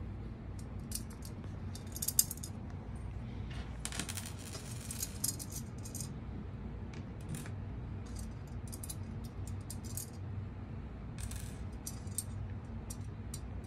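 Small metal washers and nuts clinking as they are taken off an antenna adapter plate's studs and set down on a desk: scattered light clicks, with one louder click about two seconds in. A steady low hum runs underneath.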